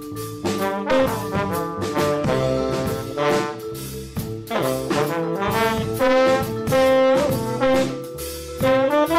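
Live jazz band playing: trombone and saxophone play a moving horn line over drums and cymbals, with vibraphone and upright bass in the band.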